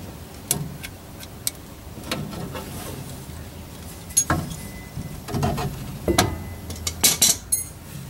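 Scattered clicks, taps and knocks of hand work on rubber fuel line and its fittings, with a quick cluster of sharper clicks near the end.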